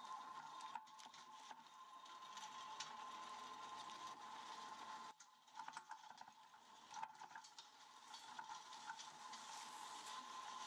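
Near silence: a faint steady hiss and high hum, with scattered light ticks and rattles from the empty log arch being towed over rough ground behind the Jeep.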